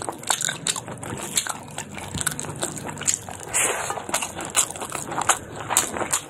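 Close-up chewing of a mouthful of pork and rice eaten by hand, with many irregular short mouth clicks.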